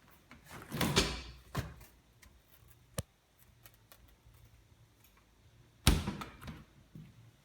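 Doors being opened and shut with knocks and a slam: a loud cluster about a second in, a sharp click a couple of seconds later, and another loud knock near the end followed by a few lighter ones.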